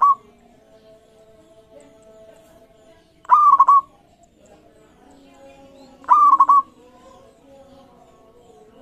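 Zebra dove (perkutut) singing its cooing call. Two full calls come about three seconds apart, each a short rising note that breaks into a few quick rolling coos, and the tail of another call is heard at the very start.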